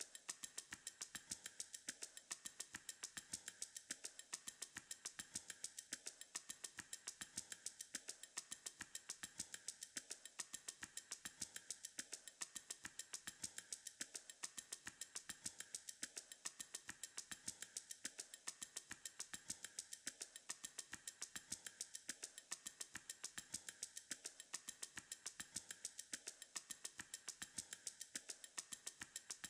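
Quiet background music: a steady beat of rapid, even clicks, with a short pattern that repeats about every two seconds.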